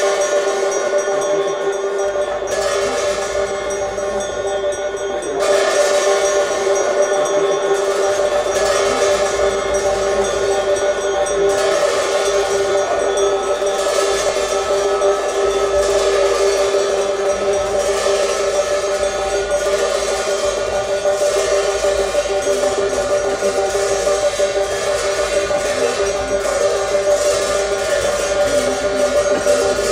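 Tibetan Buddhist ritual horns sounding long, steady held notes together, several tones at once, on a ceremony soundtrack.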